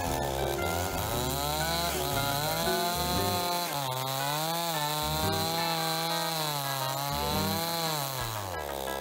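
Chainsaw running and cutting into a palm trunk, its engine pitch dipping and rising again and again as it works.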